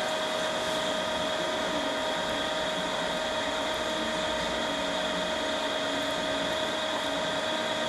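Dice-cutting machine for meat and fish running steadily: an even machine hum with a constant high whine, unchanging throughout.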